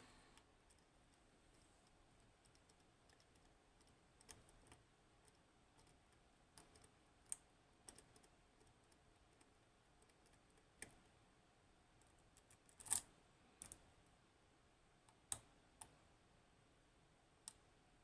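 Faint, irregular small metallic clicks of a lock pick and tension wrench working the pins inside an Assa 600 lock, the loudest about thirteen seconds in.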